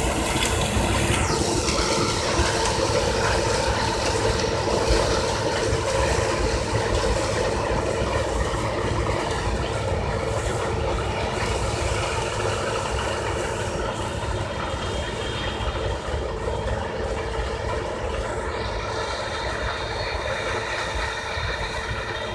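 Claas Lexion 480 combine harvester running while harvesting corn: a steady, dense mechanical drone with steady whining tones, slowly getting quieter.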